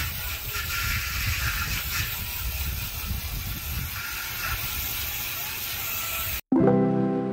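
Wind buffeting the microphone outdoors: a steady rumble and hiss. About six seconds in it cuts off sharply and music begins.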